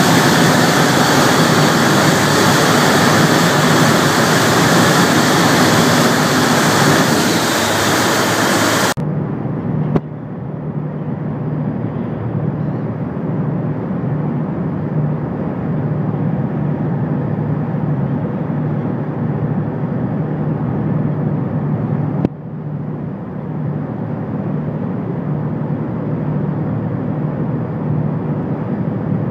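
Steady rushing noise of a tour boat's churning wake under way, over the low drone of its engine. About nine seconds in, the sound drops abruptly to a duller, quieter rush in which a steady engine hum stands out, and it changes abruptly again about twenty-two seconds in.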